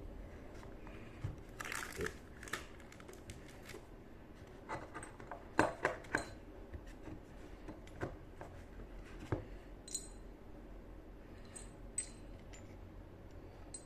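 Irregular clicks, taps and brief rustles as a motorcycle brake master cylinder and its packaging and small parts are handled, some clicks with a faint metallic ring.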